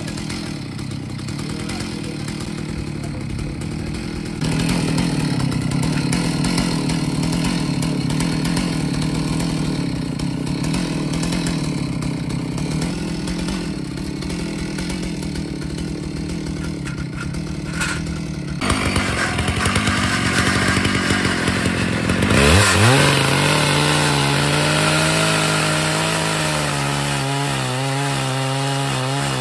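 Chainsaw running steadily for a long stretch. About three-quarters of the way through it revs up sharply and settles into a steady higher run, cutting through an oak stump on a chainsaw mill.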